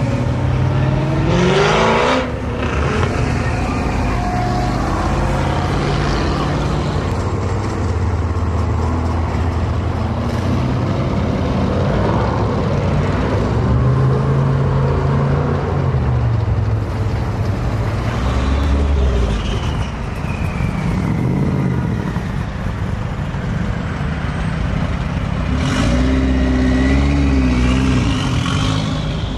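Car engines running and revving as cars drive past one after another. The engine pitch rises at the start and again near the end.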